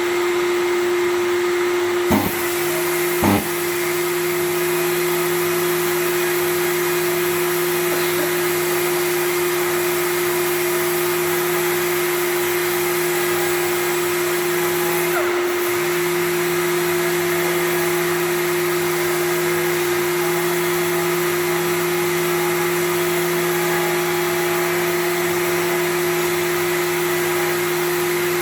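A power sander runs steadily while dry-sanding a car's rear bumper, giving a constant hum. Two sharp knocks come about two and three seconds in, and a lower hum joins just after.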